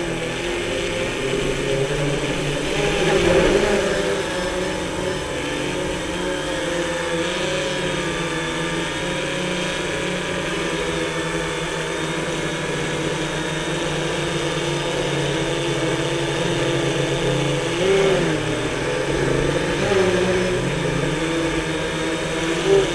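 Quadcopter drone's electric motors and propellers whirring steadily in flight, picked up by the onboard camera, the pitch wavering slightly as it manoeuvres.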